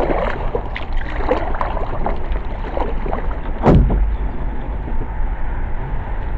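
Canoe on a shallow river: steady rushing water and rumble, with a single sharp knock about three and a half seconds in.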